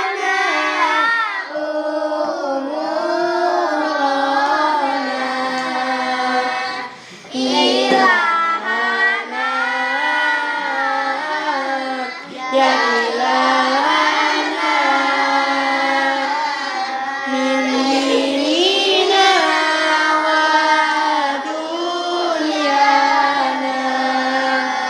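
A child singing a slow melody in long, drawn-out held notes that bend and glide between pitches, over a steady low sustained note.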